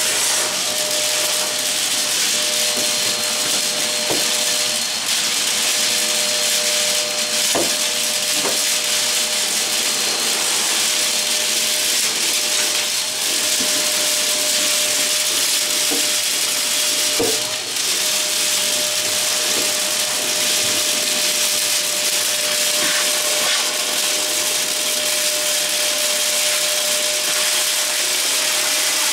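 Dirt Devil Power Reach multi-cyclonic bagless canister vacuum running steadily with a constant whine, its wand and floor tool worked over carpet. A few short, sharp knocks come through over the motor noise.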